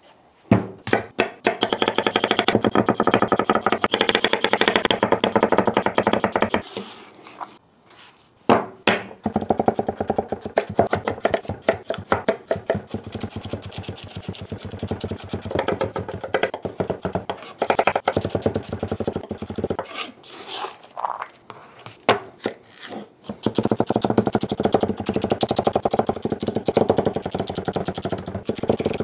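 Chef's knife dicing carrots and celery on a wooden cutting board: runs of quick chopping strokes with a couple of short pauses, over background music.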